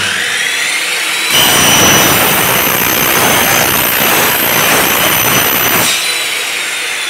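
A compound miter saw's motor whines up to speed. About a second in, the blade bites into an aluminium profile with a loud cutting screech lasting about four and a half seconds. Near the end the blade comes free and the motor whine falls as it slows.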